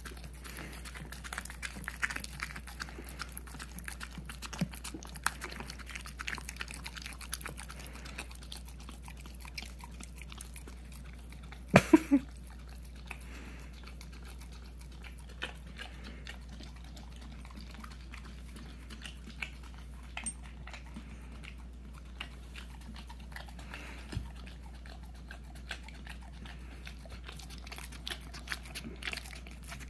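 Boxer puppy licking and smacking peanut butter off a paper plate: a run of small, irregular wet clicks, with one brief, louder sound about twelve seconds in.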